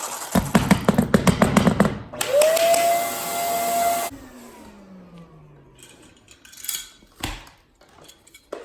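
Power saw cutting through wood flooring with a rapid chattering rattle. The motor then revs up to a steady whine, is switched off about four seconds in, and winds down with a falling whine. A few light knocks follow near the end.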